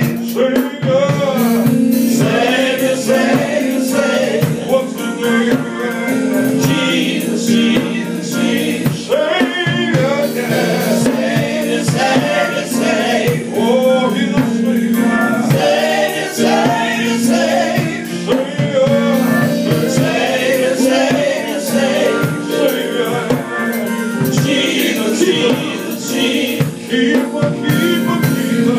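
Live gospel praise singing: a lead singer on a microphone with other voices joining in like a choir. Band accompaniment runs underneath, with sustained chords and a steady beat.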